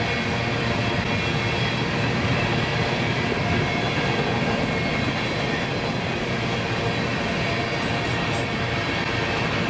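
Empty coal cars of a freight train rolling past, a steady noise of steel wheels running on the rails.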